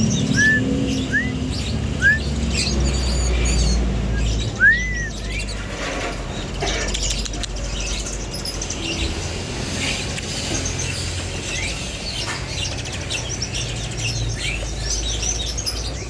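Many caged birds chirping and calling at once: a dense mix of short high chirps, with several clear arched whistled notes in the first five seconds, the last of them the loudest. A steady low hum runs underneath.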